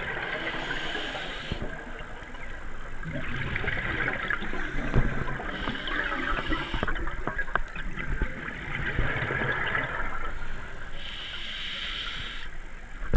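A scuba diver breathing through a regulator underwater: short hissing inhalations about every five to six seconds, each followed by a longer spell of crackling, gurgling exhaled bubbles.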